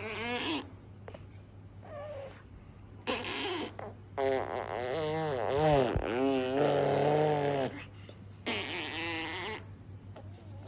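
A person's voice making sound effects with the mouth: several short bursts with a wavering, warbling pitch, the longest and loudest from about four seconds in to nearly eight.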